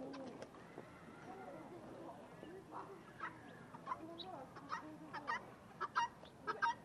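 Helmeted guineafowl calling: a run of short, harsh calls that come faster and closer together from about three seconds in.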